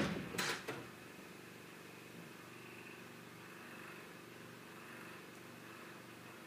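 A few sharp knocks in the first second, then a steady low hum of room tone.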